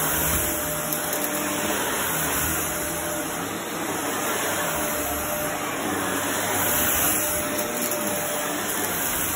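Shark upright vacuum cleaner running steadily as it is pushed back and forth over a rug, its noise swelling and easing gently with the strokes.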